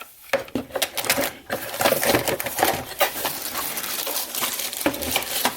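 The printer and its accessories being handled and packed back into their box: a continuous run of quick clicks, taps and light rustles.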